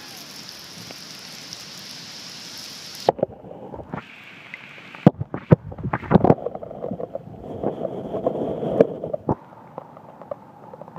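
Heavy rain falling on a lake: a steady hiss, then from about three seconds in a duller pattering with loud, irregular knocks, thickest between about five and nine seconds in.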